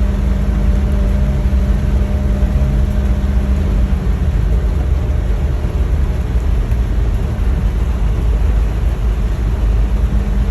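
A car driving in heavy rain: a steady low rumble of engine and tyres on the wet road under an even hiss of rain and spray. A low hum fades out about four seconds in.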